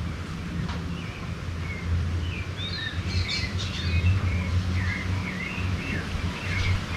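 Several birds chirping and calling in quick, overlapping short notes and pitch glides, busiest from about halfway in, over a steady low rumble.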